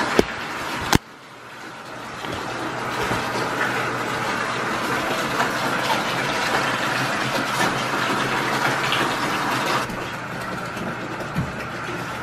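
Whirlpool bathtub's jet pump running, churning bubble-bath water: a rushing, frothing water noise over a low steady motor hum. Two clicks near the start, then the sound drops out briefly about a second in and builds back up over the next second.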